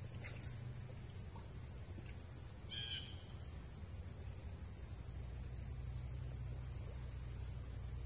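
A steady, high-pitched insect chorus trilling without a break, with a low rumble underneath and a short chirp about three seconds in.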